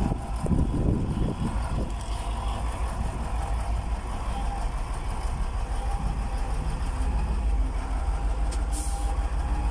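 Hyundai D8AV diesel engine of a twelve-wheeler truck idling steadily, with a short hiss of air from the air-brake system near the end.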